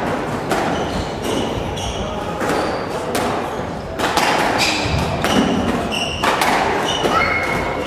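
Squash rally: repeated sharp smacks of the ball off racquets and the court walls, with short high squeaks of court shoes on the hardwood floor.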